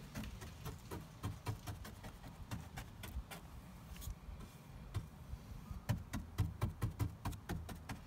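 Bristle brush dabbing resin onto a fibreglass panel: a run of quick, light, irregular taps that come thickest near the end, over a low steady rumble.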